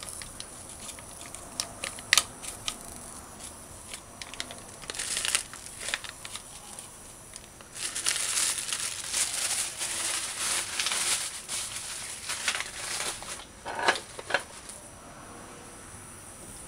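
Plastic bag of curry powder crinkling as it is handled and shaken, mostly in the middle stretch, with a few light taps and ticks.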